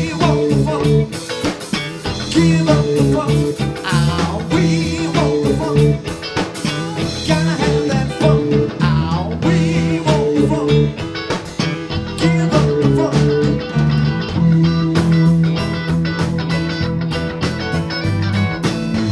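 Live band playing: electric guitar, electronic keyboard and drum kit, with a steady bass line and beat.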